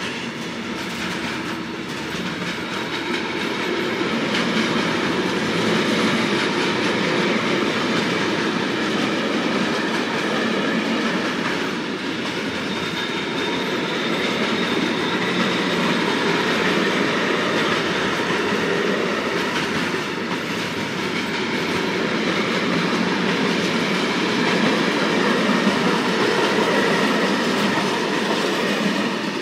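Intermodal freight train of container and swap-body flat wagons rolling past at speed, a steady noise of steel wheels on the rails. The sound falls away near the end as the last wagon goes by.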